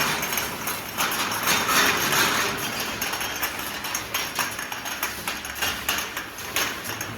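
Glass vials clinking and knocking irregularly as they move through a running ultrasonic vial washing machine, over a steady hiss.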